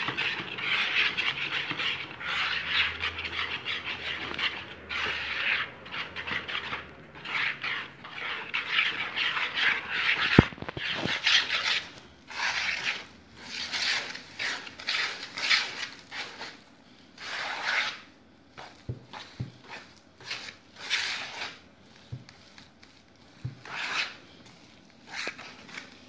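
A utensil stirring and scraping thick chocolate dough in a plastic mixing bowl as flour is worked in, in repeated irregular scraping strokes. The strokes come shorter and further apart in the second half, with a sharp click about ten seconds in.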